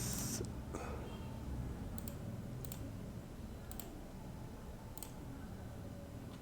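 A brief rustle, then about five sharp single clicks spaced roughly a second apart, over a faint steady low hum.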